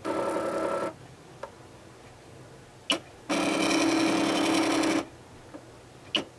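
Cricut die-cutting machine's motors running as the cutting carriage and mat move during a cut: a short run at the start and a longer, steady run about three seconds in, with a sharp click between them and another near the end.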